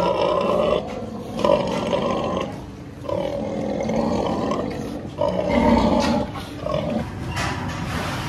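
Domestic pigs calling: a series of about five harsh, rasping grunts and calls, each lasting up to about a second.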